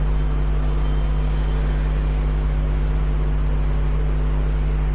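Steady low electrical hum with a hiss over it, unchanging.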